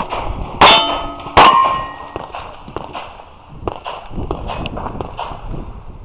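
Two pistol shots about three-quarters of a second apart from an Open-division competition pistol, each followed by the ring of a struck steel plate. After them come a few fainter clicks and knocks.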